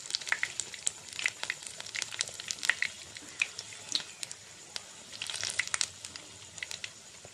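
Oil sizzling and crackling around battered ridge gourd fritters shallow-frying in a nonstick pan, a steady hiss broken by frequent sharp pops.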